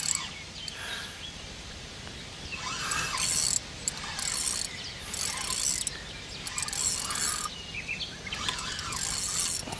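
Feeder rod's spinning reel being cranked in about five short bursts as a hooked, fighting fish is wound in, with birds chirping.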